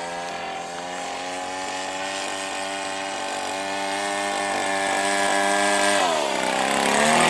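Two-stroke petrol engine from a Krisbow 42.7cc grass cutter, driving the propeller of a radio-controlled plane in flight: a steady buzzing drone that grows louder as the plane comes close. About six seconds in, the pitch dips and then climbs again as the plane passes by.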